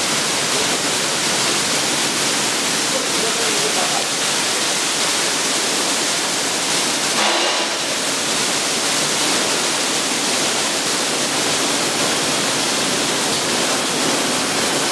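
Sino Star C7 gantry brush car wash machine running: a steady rush of water spraying onto the car while its brushes wash it.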